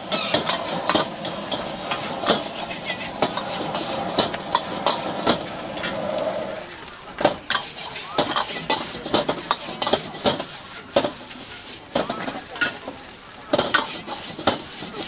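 A metal ladle clanking and scraping in a wok at irregular intervals as noodles and vegetables are stir-fried, with the food sizzling underneath.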